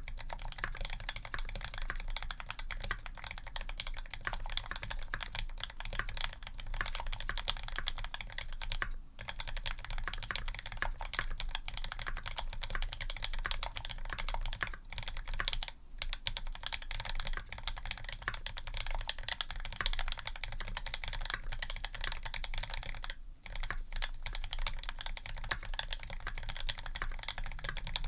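Fast, continuous typing on a Square 60 custom 60% mechanical keyboard: aluminium plate, lubed H1 switches with TX films and TX 65 g springs, Cherry stabilizers and GMK Red Samurai keycaps. The key strokes come in an unbroken stream, with short pauses about 9, 15 and 23 seconds in.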